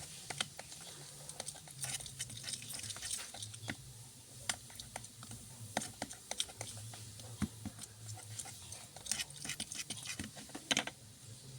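Clear glue and slime activator being stirred in a small container: irregular sticky clicks and taps of the stirrer against the cup, with a quick flurry of them near the end.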